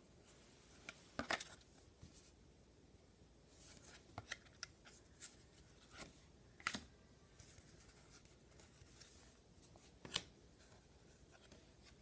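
Trading cards and packs being handled: faint scattered rustles and light clicks as cards are slid and flipped, the loudest about a second in, near the middle and near the end.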